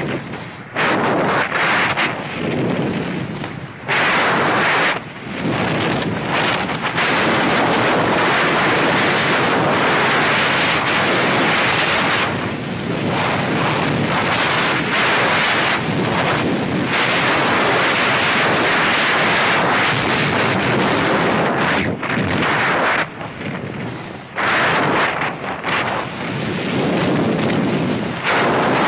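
Wind rushing over a helmet-mounted camera's microphone while skiing downhill at speed. It is loud and gusty, cutting out abruptly and coming back many times.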